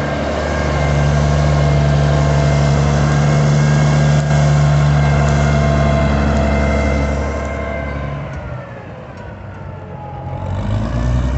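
Farmall 706 tractor engine running steadily at working speed. About eight seconds in it drops in pitch and gets quieter, then picks up again near the end.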